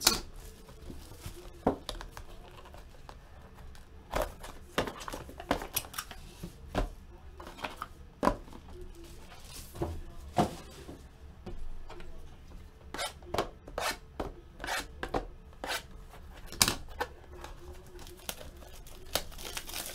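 Sports trading card packs and wrappers being opened and the cards handled: irregular rustling and tearing with many short, sharp clicks.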